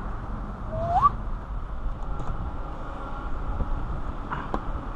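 Plastic windshield cowl trim being worked loose by hand, with a low rumble of handling noise, one short rising squeak about a second in and a few light clicks near the end.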